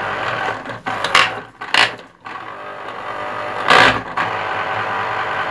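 Electric citrus juicer's motor spinning the reamer cone while the cone is pressed down, a steady hum. It breaks off briefly, then runs steadily again. There are three sharp knocks from the cone and housing, about a second in, just before two seconds, and near four seconds. Under load the repaired juicer keeps running instead of stalling.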